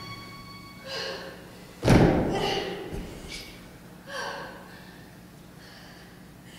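A single heavy thump about two seconds in, a dancer's body dropping onto the wooden stage floor, with a few faint short voice-like sounds before and after it.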